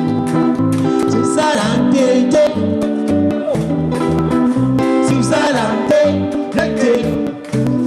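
Music: singing over plucked guitar with a steady rhythmic bass.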